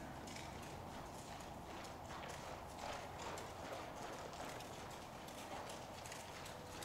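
Faint, steady rhythm of a ridden horse's hoofbeats on soft dirt arena footing.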